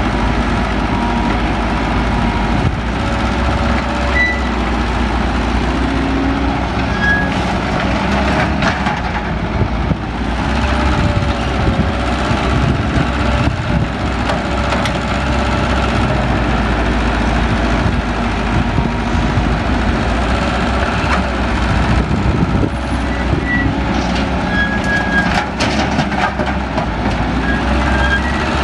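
Heavy diesel engines of an excavator and truck running steadily under load, with a few sharp metallic clanks about a third of the way in and again near the end.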